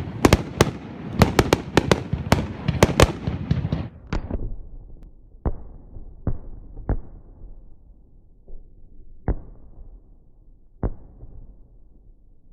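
Fireworks going off: a rapid string of sharp crackling bangs for about the first four seconds, then five scattered single bangs, each a second or more apart.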